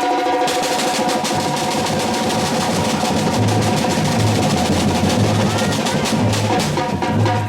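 Music: rapid, dense drumming over steady held chords.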